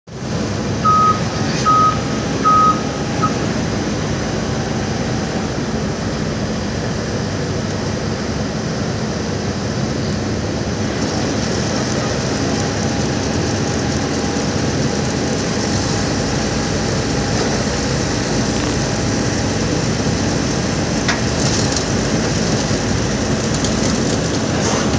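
Jet engines of a twin-engine widebody airliner running at takeoff power during the takeoff roll: a steady distant roar, with a hiss that grows stronger about halfway through. Near the start come three or four short high beeps.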